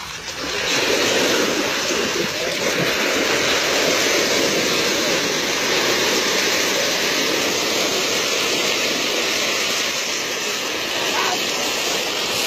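Steady rushing, splashing water from a crowd of fish churning the shallow water inside a wire-mesh fish trap.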